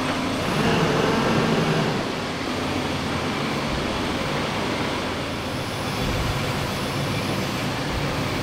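An engine running steadily, with no sharp knocks or bangs, as heavy machinery works.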